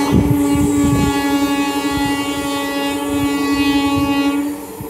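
Electric multiple-unit local train sounding its horn in one long steady note while running through the station, with the wheels thudding over rail joints underneath. The horn cuts off near the end.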